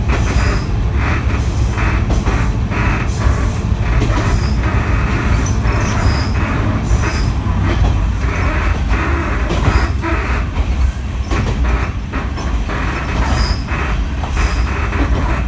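KiHa 52 diesel railcar under way, its DMH17H diesel engine running under a steady low rumble, with rapid uneven clatter from the running gear and a few brief high wheel squeals.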